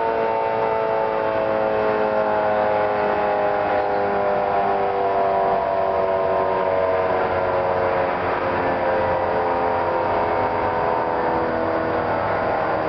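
Federal Signal 3T22 three-tone siren sounding its chord, the pitch of all its tones slowly falling as it winds down.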